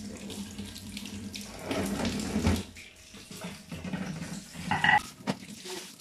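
Kitchen tap running into a stainless steel sink, the water splashing as sweet potatoes are rubbed clean by hand under the stream. A short sharp sound about five seconds in is the loudest moment.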